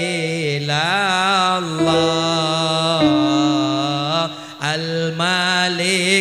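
A man singing sholawat, an Islamic devotional song, in long held notes whose pitch wavers and bends in melismatic ornaments, with a short breath break about four seconds in.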